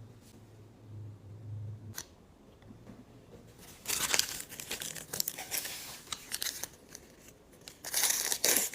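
Small plastic packaging crinkling and being torn open by hand, in irregular bursts that begin about halfway through and are loudest near the end, after a single click about two seconds in.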